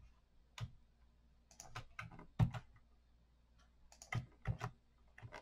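Faint keystrokes on a computer keyboard, in short irregular groups of taps: one tap under a second in, a run around two seconds in, and another around four seconds in.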